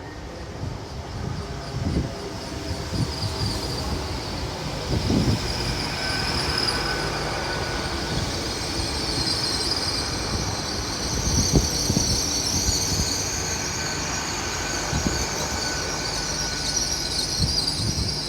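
Great Western Railway Class 800 IET train pulling into a station platform: a low rumble with a high-pitched wheel squeal as it brakes, growing louder over the second half.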